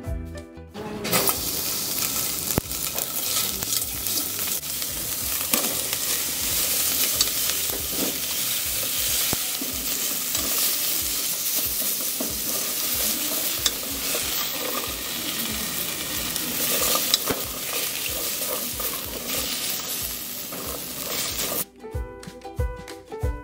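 Bacon, sliced onion and carrot sizzling as they are stir-fried in a hot stainless steel pot, with cooking chopsticks scraping and clicking against the pot. The sizzle starts about a second in and gives way to background music near the end.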